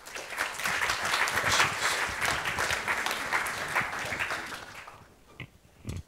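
Audience applauding, the clapping dying away about five seconds in.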